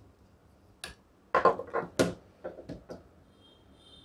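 Plastic and metal tripod parts clicking and knocking on a glass tabletop as the Osaka OS 550 tripod's phone holder is taken off its head and set down. The clicks come as a quick flurry a little over a second in, then a few lighter ones.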